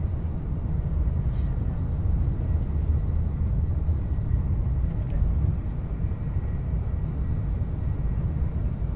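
A Tokaido Shinkansen bullet train running at speed, heard from inside the passenger cabin as a steady low rumble.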